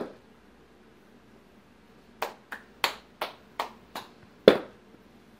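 A sharp knock right at the start, then, from about two seconds in, a quick run of about seven sharp clicks or snaps, roughly three a second, the last one the loudest.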